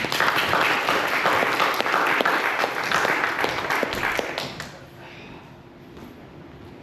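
Audience applauding, with many quick overlapping claps, then dying away about five seconds in.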